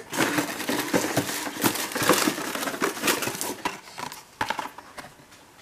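Hand rummaging in a cardboard shipping box and pulling out a carded diecast car: rustling and crinkling of cardboard and plastic blister packaging with many small clicks and knocks, thinning out to a few clicks after about four seconds.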